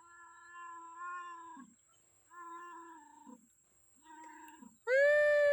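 A cat meowing four times in long drawn-out calls, the last one much louder and higher-pitched, like a cat begging for food.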